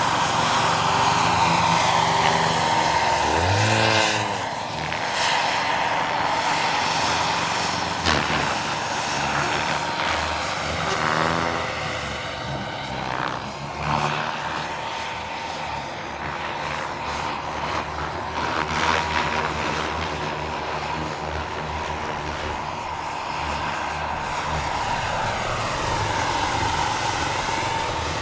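Large-scale radio-controlled Bell 206 JetRanger model helicopter with a turbine engine in flight: a steady turbine whine over rotor noise. The pitch sweeps as it flies past, about four seconds in, again around eleven seconds, and near the end.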